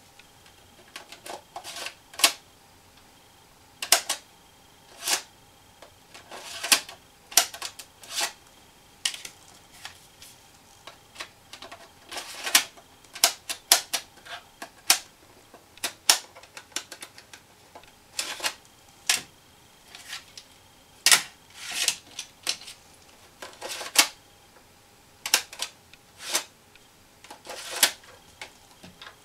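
Irregular sharp plastic clicks and clacks from handling a USB 3.5-inch floppy drive and a floppy disk, the disk being fitted to the drive and the drive's casing turned in the hands.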